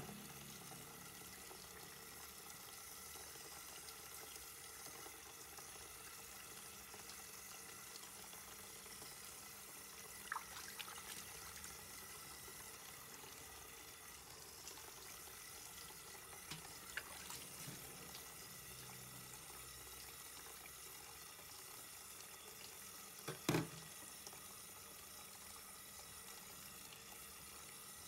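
Tap water running steadily into a metal bowl in a stainless steel kitchen sink. A few short knocks break through, the loudest about three-quarters of the way in.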